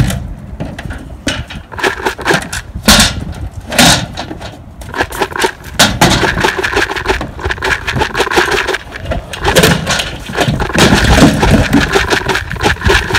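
A vehicle running, with frequent loud knocks and rattles that grow busier from about five seconds in.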